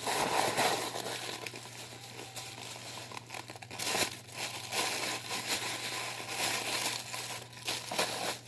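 Shoe packaging being handled and unwrapped by hand: irregular rustles and crinkles of paper or plastic wrapping, with some tearing.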